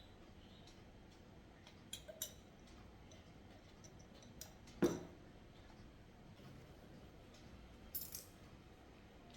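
Quiet eating and dish-handling sounds: a few light clicks and taps, with one louder knock and thud about five seconds in.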